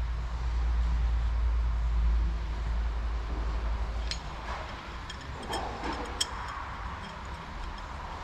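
A low rumble that fades about four seconds in, then a few light metallic clicks and clinks, like hand tools or parts being handled.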